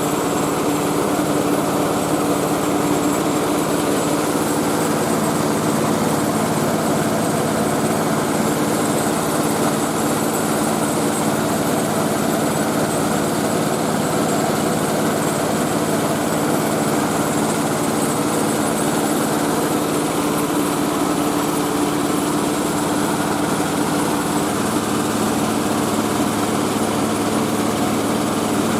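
Mobile rice-milling machine running steadily, its engine and milling mechanism making a continuous, unchanging mechanical drone with a steady hum.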